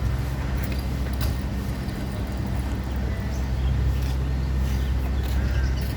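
Engine running with a steady low rumble, with a few light clicks and knocks over it.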